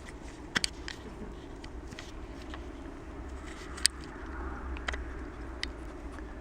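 Ferret sneezing: a few short, sharp sneezes, a quick pair about half a second in and a louder single one near the middle, over a steady low hum.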